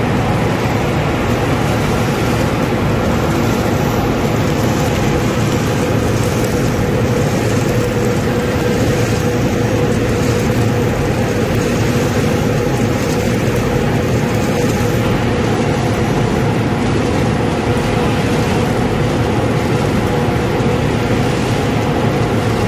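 Fried-peanut processing line machinery running steadily: an even, continuous mechanical noise with a constant hum.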